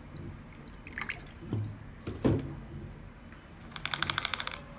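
Water poured and dripping into a plastic tub of silver chloride sludge, with a few sharp knocks of the plastic. Near the end comes a quick run of clicks as the tub is handled.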